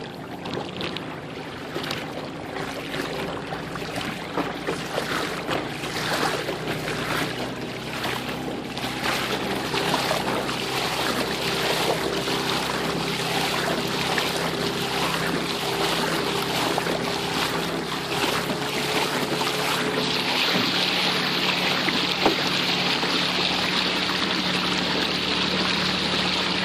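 Boat motor running steadily while the boat moves through the water, with water rushing and wind noise over it, growing louder over the first ten seconds. The motor's pitch shifts about twenty seconds in.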